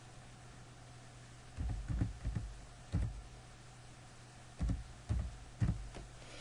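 Computer keyboard typing: about eight separate keystrokes in uneven groups, a quick cluster, a single key, then three more spaced out, over a low steady hum.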